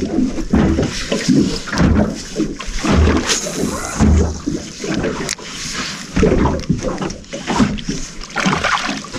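Water slapping and splashing against a small boat's hull in uneven surges, while a fish is played to the boat on a spinning rod.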